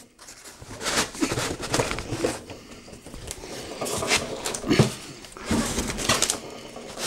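Cardboard and white foam packing being pulled apart and slid out by hand, rubbing and scraping in irregular bursts, the loudest nearly five seconds in.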